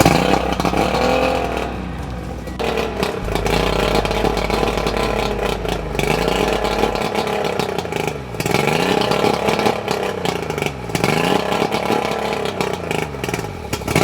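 Outboard boat motor running on flushing muffs, its revs rising and falling again and again, about every two seconds. The owner judges that it is not running right.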